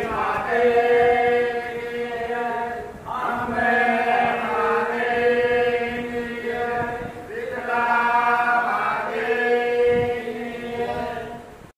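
A chorus of voices chanting in long held notes, four phrases of two to four seconds each, over a steady low note; it cuts off abruptly at the end.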